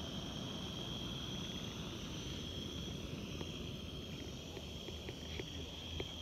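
Remote-canister gas camping stove burning under a cook pot, a steady hiss with a low rumble and a thin high tone, with a few faint clicks near the end.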